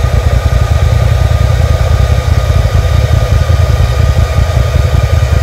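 Side-by-side UTV engine idling while parked, a loud, steady low rumble.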